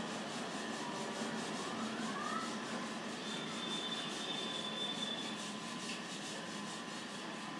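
Marker pen rubbing on a whiteboard as it writes, with short squeaks, one rising in pitch about two seconds in, over a steady background hiss.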